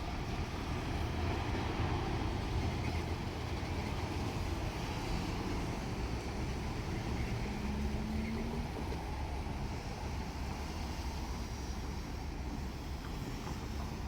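Diesel railcar running with a steady low rumble.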